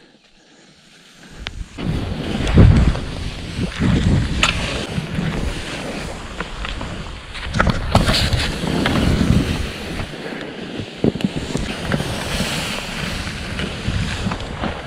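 Skis hissing and scraping through snow on a downhill run, with wind buffeting the microphone and a few sharp knocks. Nearly quiet for the first second or so.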